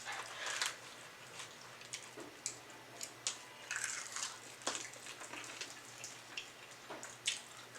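Close-up eating sounds of fried chicken wings being chewed: irregular crunches and sharp mouth clicks, scattered unevenly.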